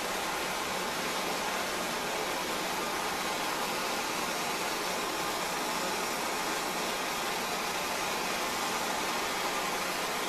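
Handheld gas torch burning with a steady hiss of its flame while a spark arrestor screen is held in it to burn off the carbon.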